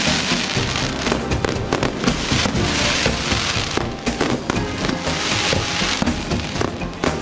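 Fireworks display: dense crackling and rapid bangs of bursting shells, with music playing underneath.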